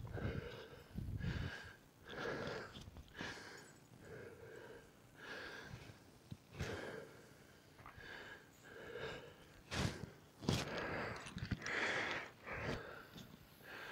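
A person breathing hard, about one breath a second, out of breath from keeping up with a dog pulling on a tracking lead. A couple of sharp knocks and rustling come about ten seconds in.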